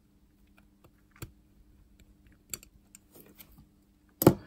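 Light, scattered clicks and taps of a screwdriver and small metal watch parts being handled as the rotor of a Seiko 7S36 automatic movement is freed, with one much louder sharp click near the end.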